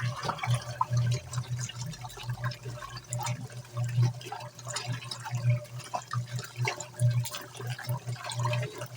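Suggar Lava Max Eco 10 kg semi-automatic washing machine agitating a load of bedding and towels in water: water churning and sloshing over a low motor hum that pulses unevenly.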